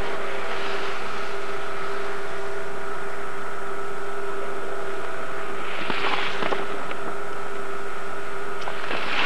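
Steady hiss with a constant low hum, the background noise of a home camcorder's built-in microphone and tape. Two short louder whooshes come through, one about six seconds in and one near the end.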